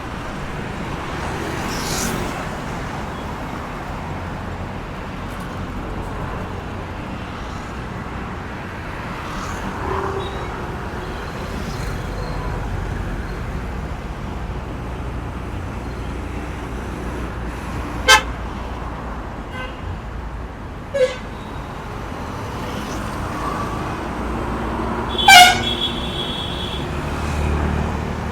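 Traffic passing on a road, with a steady rumble of engines and tyre noise. There are a few short horn toots, and the loudest comes near the end.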